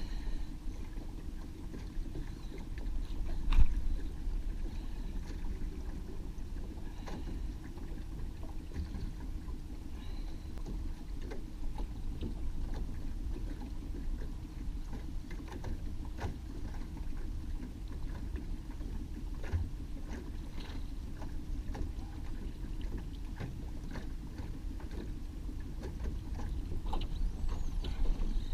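Small outboard motor running steadily at trolling speed, a low hum, with scattered faint ticks and one louder knock about three and a half seconds in.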